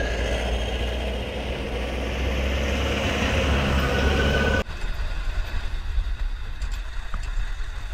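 Jeep engine and road noise, heard from a vehicle driving on a rough dirt road: a steady low rumble. Just past halfway it cuts abruptly to a quieter, thinner rumble with a few faint rattles.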